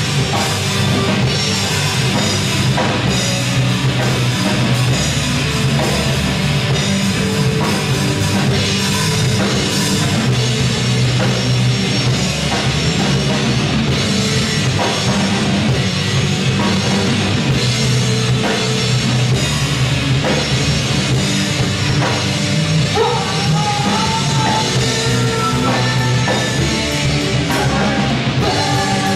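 Live rock band playing: electric guitars, bass guitar and drum kit together.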